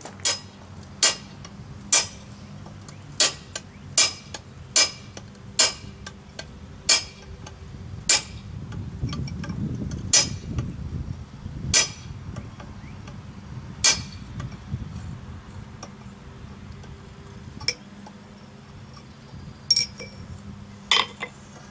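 A hammer striking a center punch on forged steel, punching whisker marks into a blacksmith's bulldog. About fifteen sharp, ringing metal strikes, quick at first, then more spaced out, over a low steady hum.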